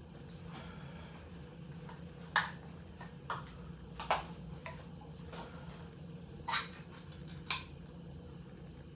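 A handful of sharp clicks and clacks, five in all and irregularly spaced, as a metal can and kitchen utensils are handled, over a steady low hum.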